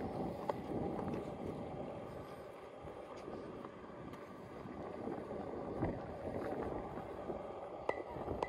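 Outdoor town-square ambience: a steady low rush of open-air background noise with scattered light clicks and taps.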